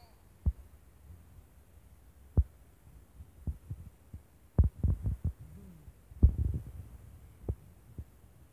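Irregular soft thumps and taps from hands playing with a baby close to the phone, several coming quickly one after another about halfway through, with brief faint baby sounds in between.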